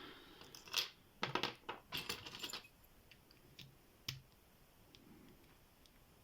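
Small metal clicks and clinks from a brass padlock being taken apart by hand, tools and a tiny screw working against the lock body. A cluster of sharp clicks comes in the first two and a half seconds, a single clack about four seconds in, then only faint ticks.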